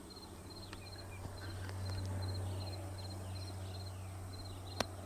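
Insects chirping in a steady rhythm, about three short chirps a second, over a low steady hum. A single sharp click comes near the end.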